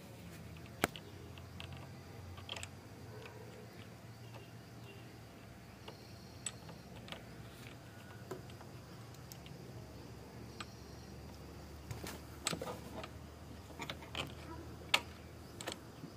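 Irregular small clicks and taps of the plastic cap and diaphragm being handled and fitted onto the Yamaha FZ v3's rear brake fluid reservoir, over a low steady hum.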